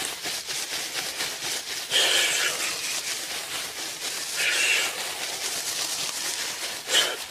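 Wood fire crackling with many small pops over a steady hiss, and two louder short rushes of hiss about two and four and a half seconds in.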